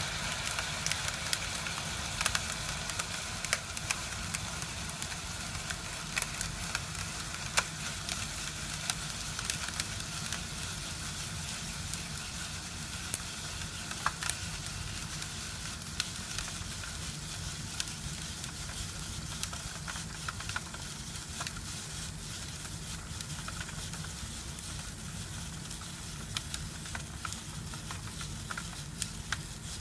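A fuming cryogenic bath in a glass dish hissing steadily, with scattered sharp crackles and ticks as a printed sheet of paper freezes in it. The hiss eases slightly toward the end.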